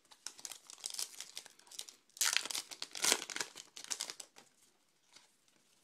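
Foil wrapper of a Topps Archives baseball card pack crinkling and tearing as it is ripped open by hand. The two loudest tears come about two and three seconds in, followed by softer rustling.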